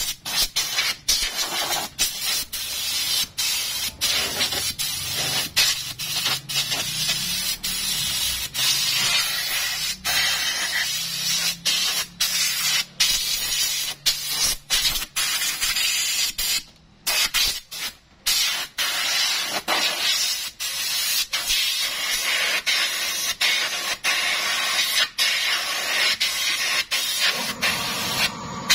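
Compressed air hissing from a blow gun as it blasts dust out of an air conditioner's coil fins. The trigger is let off for a split second again and again, with two short breaks in the air about two-thirds of the way through.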